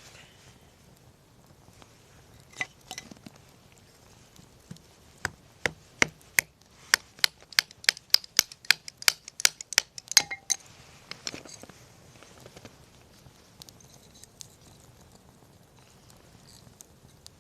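A fast, even run of sharp knocks, about three a second, from about five seconds in to about ten seconds in, with scattered lighter clicks and taps before and after.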